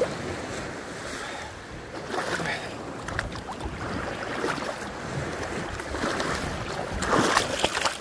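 Small Black Sea waves washing on the shore, with wind on the microphone; a louder burst of noise comes near the end.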